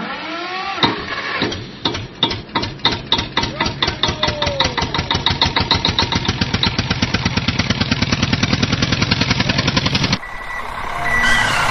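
Tractor engine starting up: slow, separate chugs that quicken into a fast, even running rhythm, then cut off suddenly about ten seconds in.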